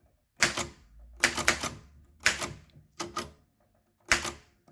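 Royal typewriter with a transparent plastic case, typing: about eight separate key strikes at an uneven pace, three of them in quick succession just after a second in, each with a short ring.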